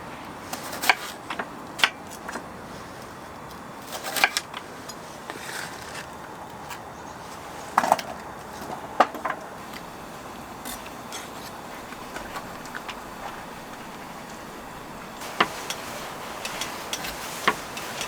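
Scattered light clinks and knocks of utensils and dishes being handled, with irregular pauses between them, over a quiet steady background.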